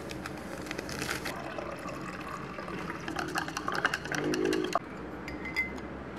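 Drink powder tipped from a sachet into a ceramic mug, then stirred with a wooden stick: quick small ticks and scrapes of the stick against the mug, busiest from about three seconds in, and one light clink of the stick on the mug near the end.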